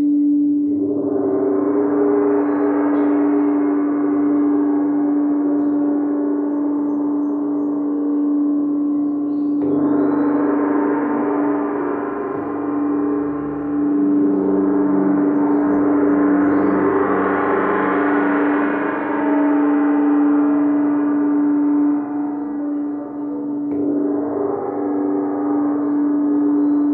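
Crystal singing bowls ringing in a sustained meditation: one steady bowl tone is held throughout. Shimmering washes of overtones swell and fade over it four times.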